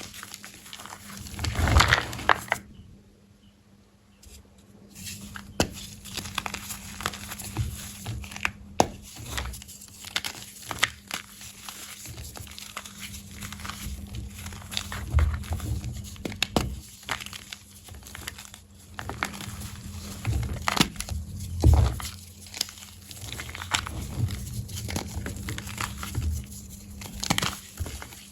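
Soft, crunchy blocks of black-dyed gym chalk being crushed, crunching and crumbling in a dense run of small crackles and snaps, with a short pause about three seconds in.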